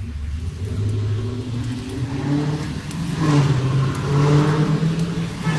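An engine running with a steady low drone that steps up in pitch about two and three seconds in, as when a vehicle accelerates.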